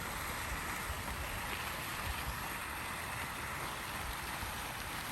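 Outdoor water fountain splashing steadily: an even, unbroken sound of falling water.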